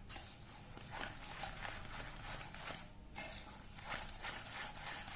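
Wire whisk stirring and scraping a stiff flour mixture in a stainless steel bowl, with quick repeated scrapes and light taps against the steel and a short pause about three seconds in.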